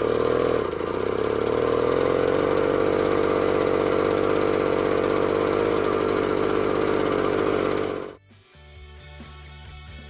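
Jawa 555 moped's 50 cc two-stroke single-cylinder engine running through its short exhaust, its pitch rising and falling briefly at first and then holding steady. It cuts off abruptly about eight seconds in, and quieter guitar music follows.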